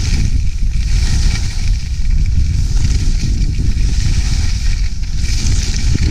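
Wind buffeting the action camera's microphone in a steady low rumble while skis hiss and scrape over the snow, the hiss swelling a few times as the skier carves turns.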